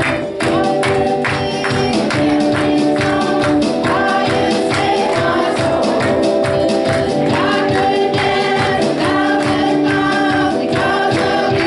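Live church worship band playing a song with a steady beat, sustained chords and voices singing.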